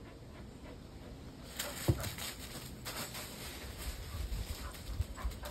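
Dry fallen leaves crunching and rustling under footsteps: irregular crackles begin about a second and a half in and go on to the end, with one sharper crunch just after they start.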